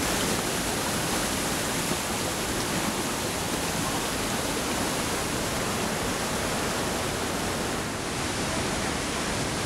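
Rushing water of a shallow river flowing through a narrow canyon: a steady, even rush.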